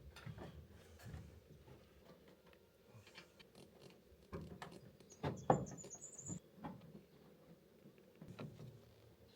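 Scattered light knocks and clicks, the loudest about five and a half seconds in, with a brief high squeak alongside it.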